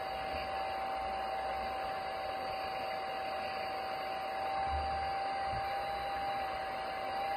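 A steady, high electric whine over a hiss, with a constant pitch, typical of the RC excavator's electric hydraulic pump motor running.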